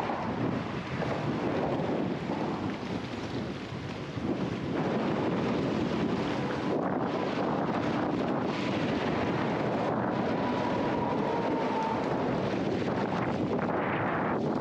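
Strong wind of about 25 mph buffeting the microphone, a steady rushing noise that gets louder about five seconds in.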